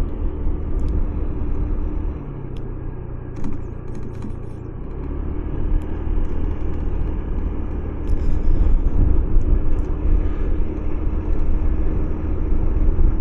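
Kymco 125cc scooter engine running with a low rumble of wind on the microphone while riding. It goes quieter for a few seconds about two seconds in, then picks up again.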